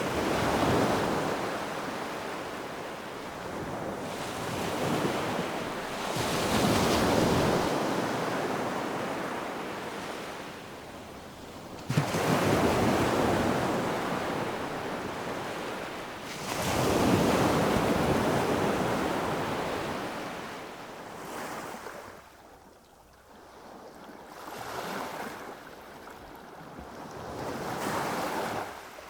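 Medium surf breaking steadily on a sandy beach, heard about 4 m from the water's edge, each wave crashing and washing out roughly every five to six seconds, one breaking with a sudden crack about twelve seconds in. Near the end it turns quieter: small gulping laps of waves on sand and seashells right at the shore of a steep beach as the tide goes out.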